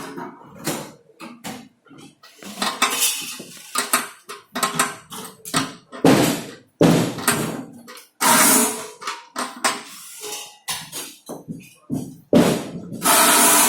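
Metal parts clinking and clattering as they are handled and knocked together, in a quick, irregular run of sharp knocks and rattles.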